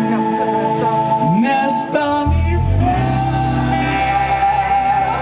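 Live rock band playing, with electric guitar and bass and a long held note above them. The low end comes in strongly about two seconds in.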